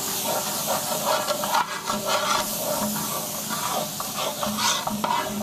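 A spatula stirring and scraping spice powders and onion-tomato masala in a large, very hot metal uruli, in irregular strokes, with the masala sizzling as the dry spices fry in the oil.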